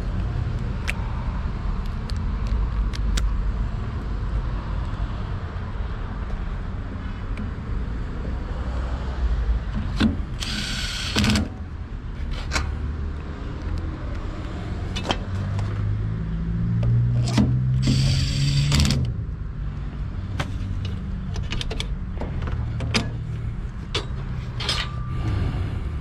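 Cordless impact driver running in two short bursts, about ten and eighteen seconds in, spinning a wire connector onto the blower motor's wire ends. A steady low rumble and small handling clicks lie underneath.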